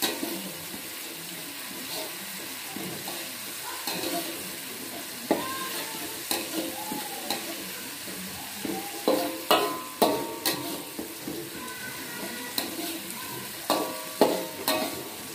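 Ground garlic, shallot and chili paste sizzling in hot oil in a wok, with a metal spatula scraping and clinking against the pan as it is stirred. Sharp, ringing clinks come now and then, loudest in clusters about nine to ten and fourteen seconds in.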